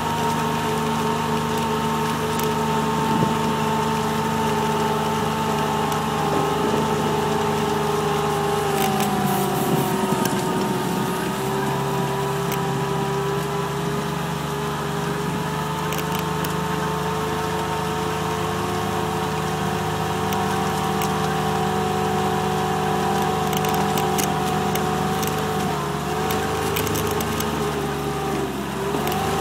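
Kubota RTV 1140 CPX utility vehicle on rubber snow tracks, its three-cylinder diesel and drivetrain running steadily under load with a prominent whine. The pitch drops about ten seconds in, holds lower, and dips briefly twice more near the end, with a few light clicks and clatters along the way.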